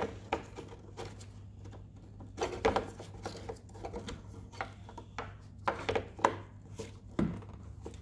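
Scattered light plastic clicks and rubbing as a brake-light bulb holder is handled and fitted back into a car's tail light housing, with a few louder clicks near the middle and end. A faint steady low hum runs underneath.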